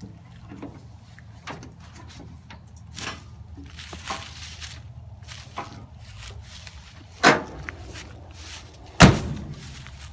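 Steel cab door of a 1967 International Loadstar truck: light scuffs and knocks of someone climbing down out of the cab, then two sharp slams about seven and nine seconds in, the second the loudest, as the door is shut.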